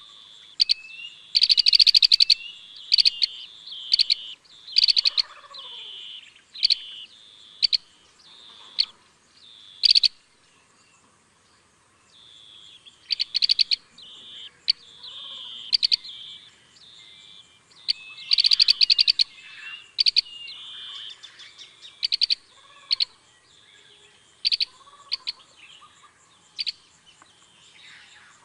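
Green bee-eaters calling: short, sharp, high chirps, some in quick trilling runs, with dense bursts of rapid calls about two seconds in and again near the middle. A steady high buzz runs beneath them.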